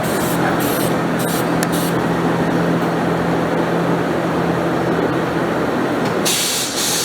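Short hissing bursts of compressed air, as from a blow gun, over a steady machinery hum. A few bursts come in the first couple of seconds and one longer burst near the end.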